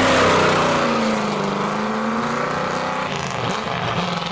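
Car engine revving hard as the car accelerates away. Its pitch falls during the first second and then holds steady, and another engine note comes in near the end.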